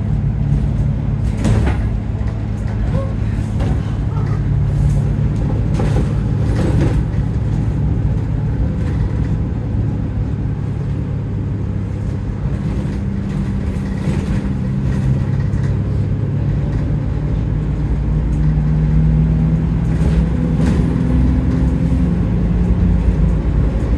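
Bus engine and drivetrain running while under way, heard from inside the saloon near the front; the engine note steps up and down in pitch several times as the bus accelerates and changes gear, with a few brief knocks from the bodywork.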